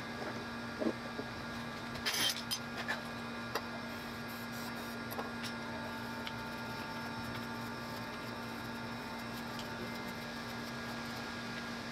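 A steady low hum, with a brief cluster of sharp clicks and knocks about two seconds in.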